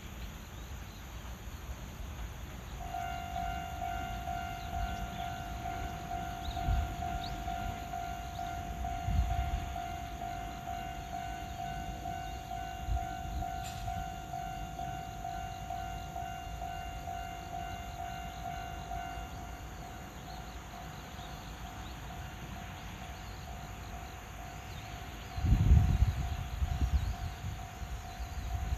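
Japanese railway level-crossing warning alarm starting up: a repeating electronic bell tone that rings on steadily. About two-thirds of the way in, once the barriers are fully down, it becomes softer and plainer. A few low rumbles come through under it, the loudest near the end.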